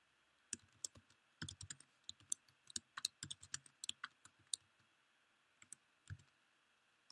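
Faint, irregular typing on a computer keyboard: scattered key clicks in short runs, busiest in the first half and thinning out toward the end.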